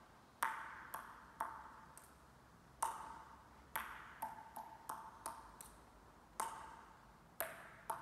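A table tennis ball bouncing repeatedly on a bat faced with a Spinlord Hai OX long-pimple rubber (no sponge): about a dozen sharp ball-on-rubber pings at an uneven pace, each with a short ringing tone. A few higher bounces are louder and leave longer gaps.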